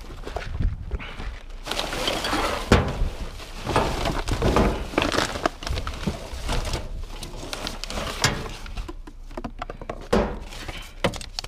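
Hands rummaging through dumpster trash: plastic bags and clothing rustling, broken by several sharp knocks of objects being shifted, the sharpest about three seconds in.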